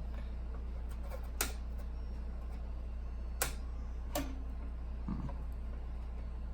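A few sharp clicks and taps, four in all about a second apart with the second the loudest, from PC case parts and slot brackets being handled while fitting a graphics card, over a steady low hum.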